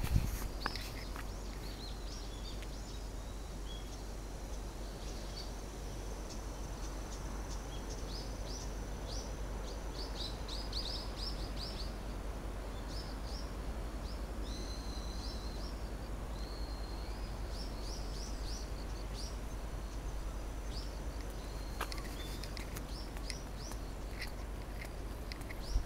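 Wild birds calling: many short high chirps and whistles, thickest in a quick run about ten seconds in, over a steady faint hiss.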